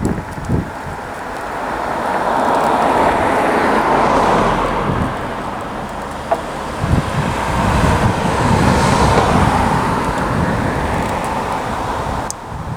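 Cars passing on a nearby road: a rising and fading rush of traffic that swells twice, about four seconds in and again around nine seconds, over light handling rustles.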